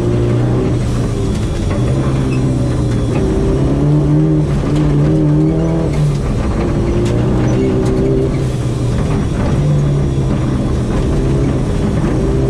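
Mazda 323 GTR rally car's turbocharged four-cylinder engine heard from inside the cabin under hard driving on gravel. Its note climbs and drops in pitch several times as it revs and changes gear.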